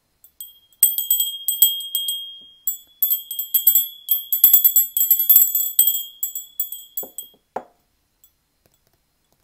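Small glass hand bells shaken, giving a steady high ring under quick tinkling strikes. It starts about a second in and stops about seven seconds in, followed by a single soft knock.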